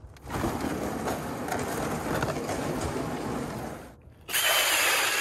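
Cordless drill-driven ice auger boring through lake ice, a steady grinding run of about three and a half seconds. After a brief pause the drill spins up again, louder, with a high motor whine.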